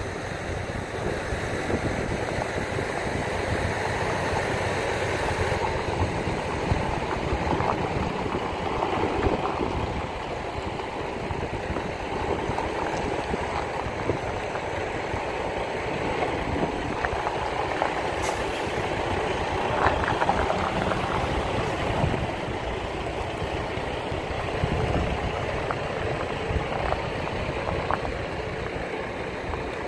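Semi truck's diesel engine running steadily at low speed.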